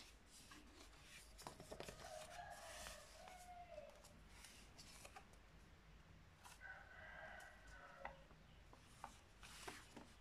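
Faint rustling and small clicks of printer paper being handled as a folded paper airplane is finished and picked up. Twice, a faint drawn-out animal call sounds in the background.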